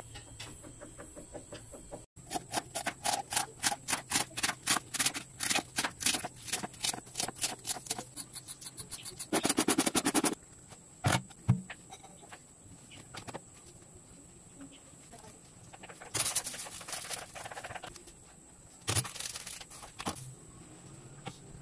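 Carrot being grated on a plastic grater with metal blades: rhythmic scraping strokes, about four or five a second, that close into a continuous rasp. A couple of shorter scraping bursts follow later.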